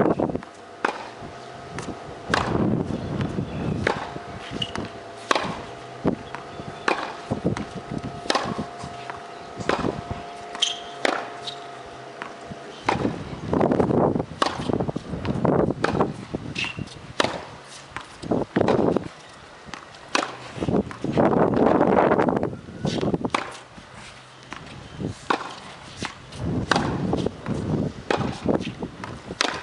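Tennis ball struck by a racquet and bouncing on a hard court, a run of sharp pops about a second apart during a groundstroke rally. Gusts of wind on the microphone come and go.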